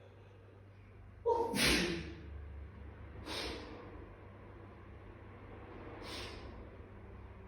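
A person sneezes once, loudly, about a second and a half in. Two shorter, softer bursts of breath follow, a couple of seconds apart.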